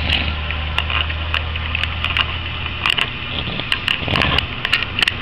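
Snoring: one long, low, rasping snore lasting about three and a half seconds, then fading, with scattered small clicks and crackles.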